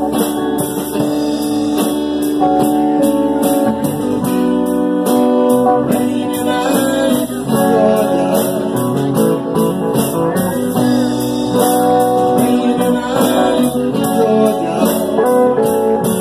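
Live band playing with electric guitars over a steady beat.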